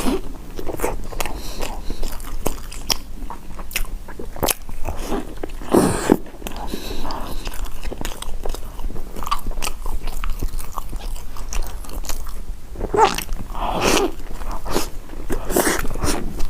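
A person biting and chewing food close to the microphone, with many irregular sharp clicks and wet mouth sounds.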